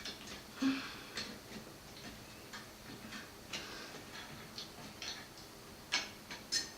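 Scattered small clicks and taps at an uneven pace from a CPU cooler being handled and seated over the processor on the motherboard, with a few sharper clicks near the start and near the end.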